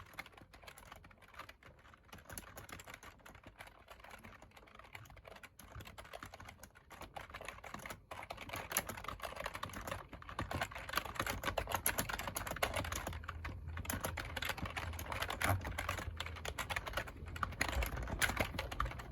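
Typing on a computer keyboard: a continuous run of rapid key clicks, growing louder about halfway through.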